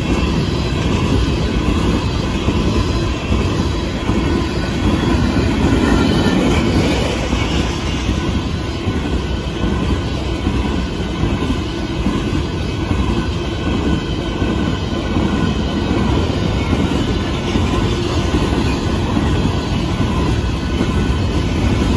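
Covered hopper cars of a freight grain train rolling past: a continuous rumble and clatter of steel wheels on the rails.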